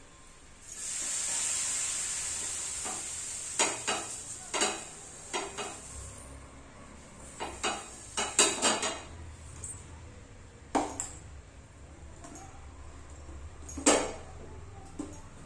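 Cold water sprinkled on a hot non-stick dosa tawa sizzles in a sudden hiss that fades over a couple of seconds, the sign that the pan is hot enough for the dosa batter. Then come scattered clinks and knocks of steel vessels against the pan, the loudest one near the end.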